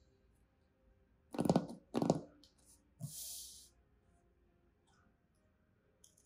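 Hands handling a cardboard shipping box: two short, loud pats on the cardboard about a second and a half and two seconds in, then a brief brushing hiss of hands sliding over its surface.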